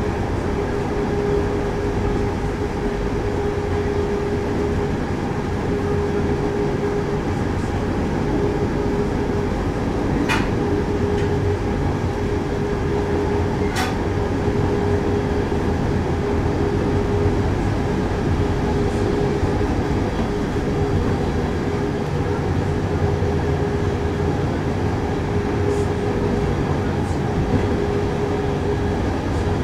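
Train running steadily along the track: a continuous rumble of wheels on rail with a steady hum, and two short clicks about ten and fourteen seconds in.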